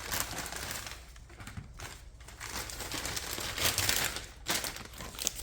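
Packaging crinkling and rustling in irregular bursts as a small parcel is opened by hand.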